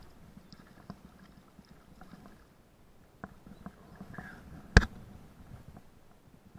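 Scattered light knocks from a small inflatable pontoon boat on the water, with one much sharper knock nearly five seconds in.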